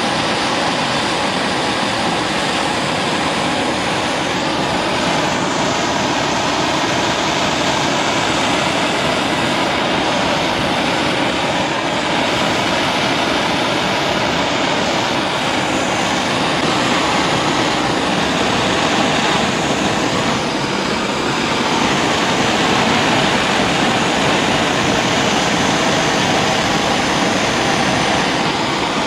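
Gas torch flame burning with a steady, continuous hiss as it heats paint-coated spanners to cure the coating.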